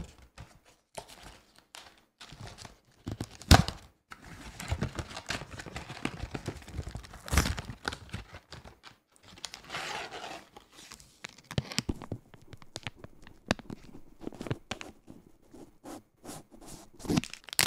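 Cardboard snack box being torn open and a cereal bar's wrapper crinkling, close to the microphone: a run of sharp rips and crackles, the loudest rip about three and a half seconds in.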